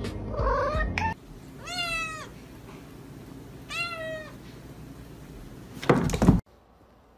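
A domestic cat meows twice, about two seconds apart, each a long call that drops in pitch at its end. Near the end comes a short loud thump as the cat leaps down from a carpeted cat tree.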